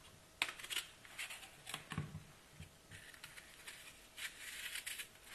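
Faint sounds of an apple being cut into pieces and its core removed by hand: scattered sharp clicks and taps, with a soft scraping stretch in the second half.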